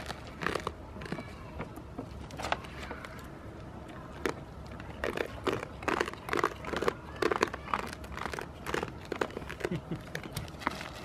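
Goats taking food from a hand and chewing it, with irregular crunching and crinkling sounds, thicker in the second half.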